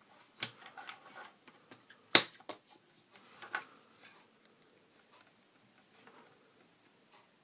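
Small clicks and taps from handling electronics parts on a desk, the loudest a single sharp click about two seconds in, then only faint ticks in the second half.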